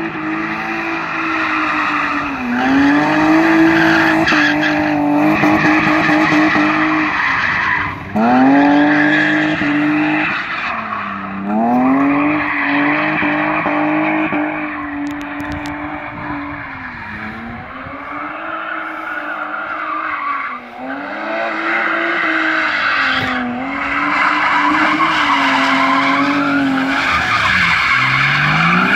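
BMW E36 325's straight-six engine held at high revs while drifting, its pitch dipping and climbing back again every few seconds, with tyres squealing and skidding throughout.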